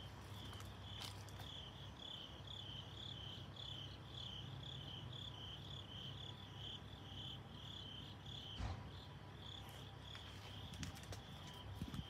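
Crickets chirping in a steady run of short, high pulses over a low steady hum, with a single knock about eight and a half seconds in and a few small knocks near the end.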